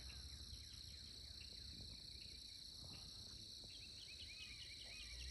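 Faint steady trilling of insects such as crickets, with many short chirps.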